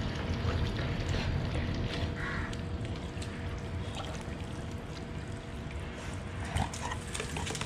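Swimming-pool water lapping faintly at the edge, with small splashes and clicks, over a steady low background noise.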